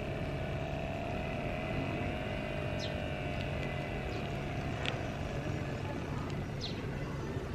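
Small electric air pump of a Dr Morepen BP-09 automatic blood pressure monitor running steadily with a whirring hum, inflating the arm cuff as the pressure builds.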